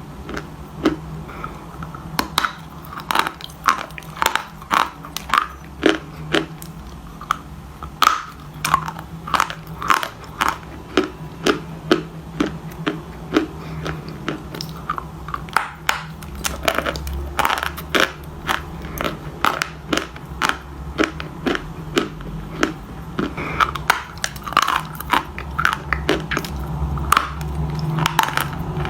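Someone biting and chewing something hard and brittle, close to the microphone: a long run of sharp, irregular crunches, about one or two a second, over a steady low hum.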